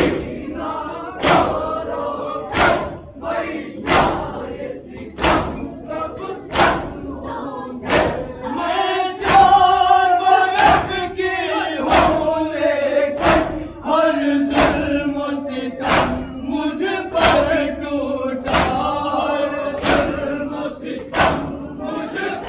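A crowd of men chanting a noha, a Shia lament, in unison, while beating their chests in matam: a sharp collective slap about every 1.3 seconds keeps the beat. From about a third of the way in, the voices hold long sung lines.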